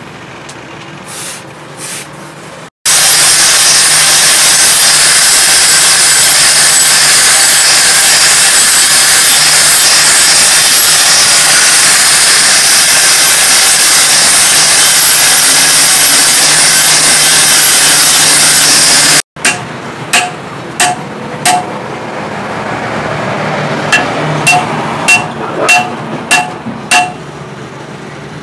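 An angle grinder with an abrasive disc grinds the steel blade of a pick head in a long, steady run that stops abruptly. Then a hammer strikes metal in quick, evenly spaced taps, each with a short metallic ring, driving the head onto its handle.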